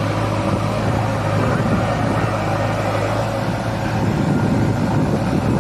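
Diesel engines of a farm tractor and a backhoe loader running steadily at idle, a constant low hum with engine noise over it.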